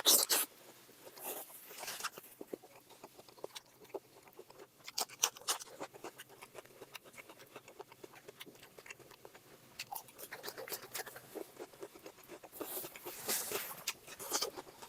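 A person chewing and eating cooked pork close to the microphone: a run of wet mouth clicks and crunches, with louder noisy bursts right at the start and again about thirteen seconds in.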